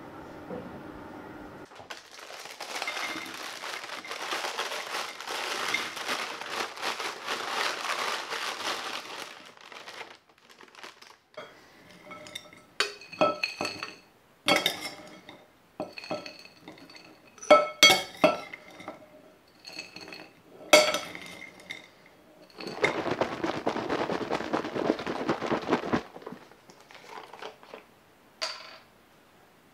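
Crunchy baked oat granola clusters pouring and rattling into a glass jar from a glass bowl, in two long spells, with sharp clinks of glass knocking against glass in between. A low steady hum stops about two seconds in.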